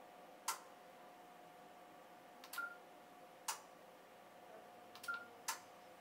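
Key beeps from a Kenwood TS-590 transceiver as its band buttons are pressed. Each beep is followed within about a second by a sharp relay click as the radio and the KPA1500 amplifier switch to the new band: a click about half a second in, then beep and click twice more.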